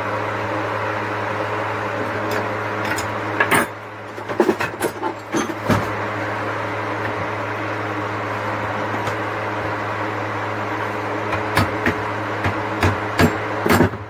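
Hammer tapping solid copper winding wire into shape at the corners of a microwave oven transformer core: two bursts of sharp metallic knocks, one a few seconds in and one near the end. A steady low hum runs underneath.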